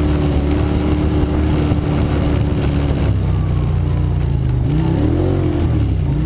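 Quad (ATV) engine running under way, heard from on board. Its note holds steady, drops about three seconds in, then rises and falls again a couple of seconds later as the throttle changes.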